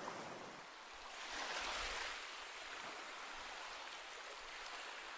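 Faint sea surf washing against rocks, a steady hiss that swells briefly about a second and a half in.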